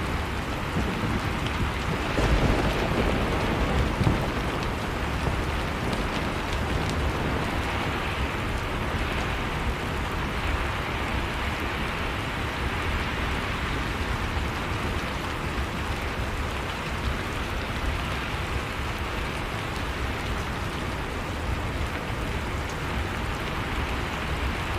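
Heavy rain falling steadily, a dense even hiss, with a couple of low rumbles about two to four seconds in.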